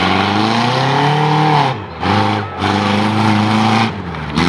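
2000 Subaru Forester's flat-four engine revving hard, easing off briefly about two seconds in and again near the end before picking up again.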